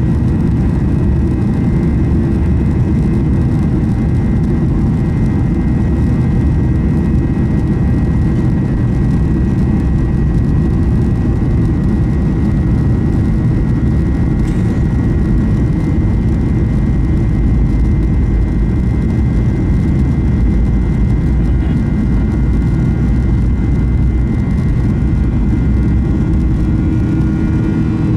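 Boeing 737-800's CFM56-7B turbofan engines at takeoff power during the takeoff roll, heard from the cabin over the wing: a loud, steady rumble with a high, thin fan whine running through it.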